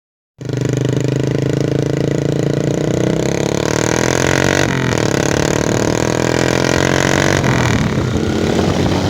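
Single-cylinder four-stroke motorcycle engine running steadily, cutting in abruptly about half a second in, with a brief shift in pitch near the middle.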